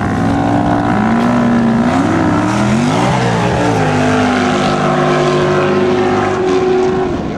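Engines of two off-road buggies running hard at full throttle as they race up a sand dune. Their pitches glide up and cross about three seconds in, and the main engine note drops away shortly before the end.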